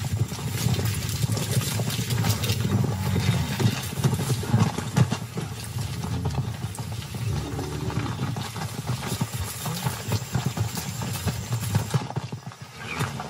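Hoofbeats of a galloping horse and moving cattle on dry ground: a dense, irregular run of thuds that eases briefly near the end.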